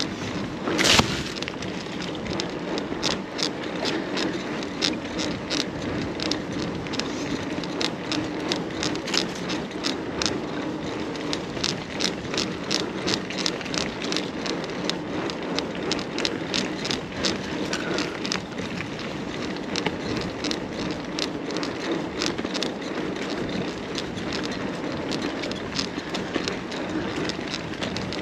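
Carrera Hellcat mountain bike riding along an off-road path: steady tyre noise with a continual run of clicks and rattles from the bike over the bumps, and one sharp knock about a second in.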